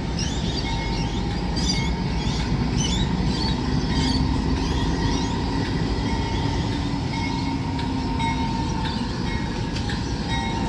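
Diesel locomotive running light on the rails: a steady, continuous low rumble, with a steady hum through the middle and short high chirps now and then.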